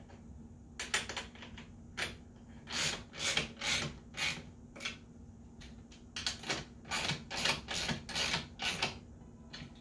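Wrench tightening a nut on a metal rotisserie frame: a run of short rasping strokes, about two a second, in two spells with a short lull in the middle.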